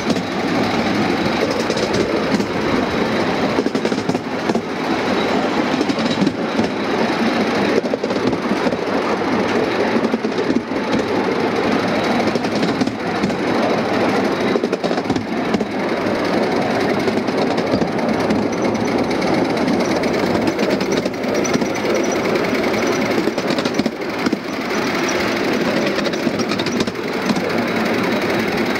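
5-inch gauge miniature steam locomotive hauling a ride-on train along a raised track: a steady, continuous rattle of the small wheels on the rails together with the running locomotive.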